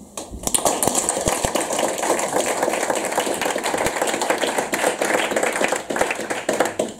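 Audience applause, many hands clapping at once, starting within the first second and stopping near the end.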